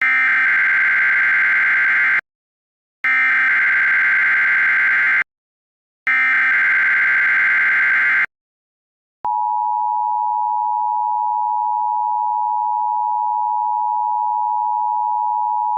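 Three bursts of Emergency Alert System SAME header data tones, each about two seconds long with short gaps between. About nine seconds in, the steady two-tone EAS attention signal starts and holds.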